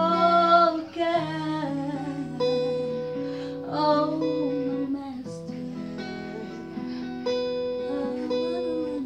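A woman singing a gospel song to a strummed acoustic guitar. Her voice comes in with held, wavering notes at the start and again about four seconds in, with the guitar chords carrying on between.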